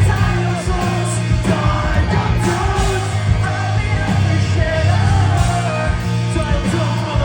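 Pop-punk band playing loudly live, with singing over the full band.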